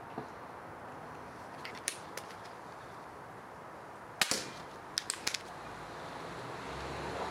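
An air pistol fires one sharp crack about four seconds in, with a few faint clicks before it and three quick clicks about a second after.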